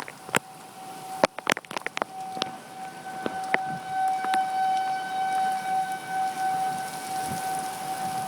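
Outdoor tornado warning siren sounding a steady wail that swells in and out in loudness, loudest in the middle. Several sharp taps come in the first few seconds.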